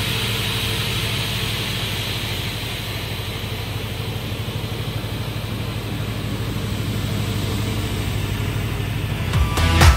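Giuntini 300/100 single-shaft crawler-feed multi-rip saw running steadily with its 22 kW motor humming, while a higher hiss fades away over the first few seconds. Electronic music comes in near the end.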